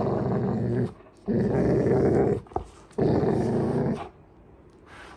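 Golden retrievers growling in play during a tug-of-war, three growls of about a second each with short breaks between, the last ending about four seconds in.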